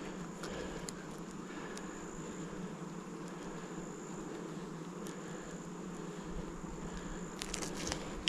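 Honeybees buzzing around an open hive: a steady low hum, with a few light clicks near the end.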